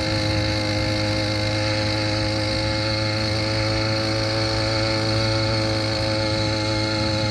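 Motorized bicycle's kit engine running steadily under load as it climbs a hill on engine power alone, with no pedalling. The engine holds an even pitch throughout.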